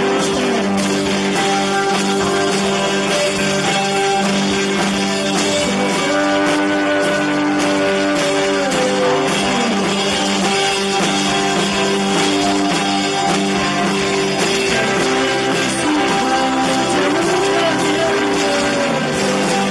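Live rock band playing: electric guitars holding sustained chords, with a few notes sliding in pitch, over drums.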